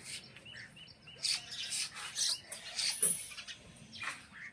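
Birds chirping: many short, high, overlapping calls, including a run of quick repeated notes about half a second in.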